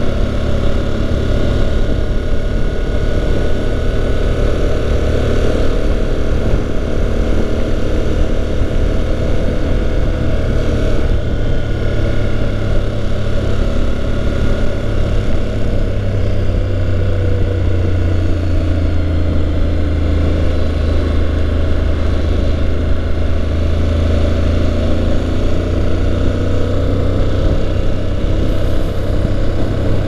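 Honda NC750X's parallel-twin engine running steadily at cruising speed, with wind and road noise from riding.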